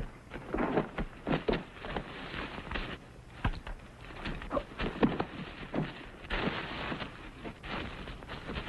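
A run of irregular knocks and thuds, with two short stretches of scraping, rustling noise, one about two seconds in and one near the end.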